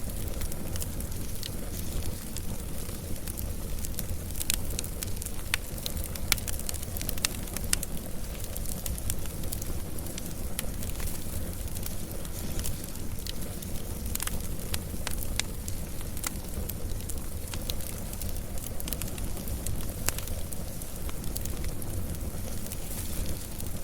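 Wood fire burning steadily, with a low rumble and frequent irregular crackles and pops of burning wood.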